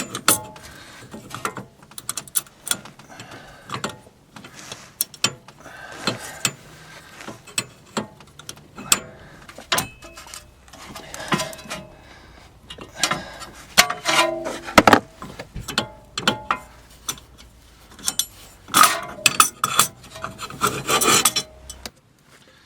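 Hand work on metal car parts: scattered clicks, taps and rubbing or scraping, with a brief metallic ring about two-thirds of the way through.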